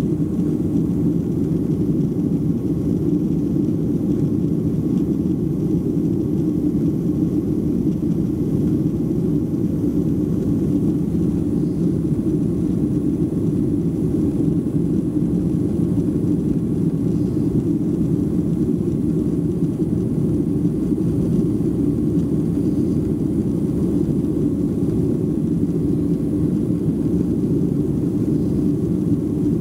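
Steady low rumble of a Boeing 737-300's CFM56-3 engines and airflow, heard inside the passenger cabin.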